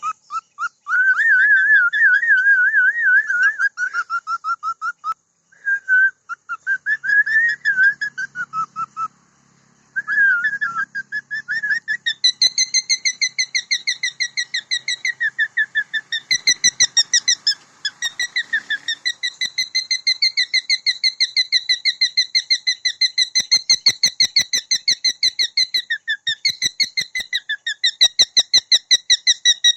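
Cockatiel singing: a wavering, whistled warble broken by short pauses, then a long run of quick, repeated whistled notes, higher and steadier in pitch.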